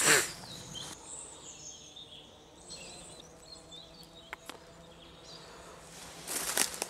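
Quiet woodland ambience with faint, brief bird chirps. There is a short rustle at the start, and about six seconds in comes a louder rustle of footsteps through dry leaf litter.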